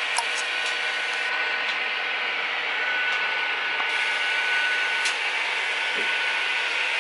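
HO-scale model trains running: a steady mechanical whir with a few light clicks, and a faint high whine that holds from about a second in until about five seconds in.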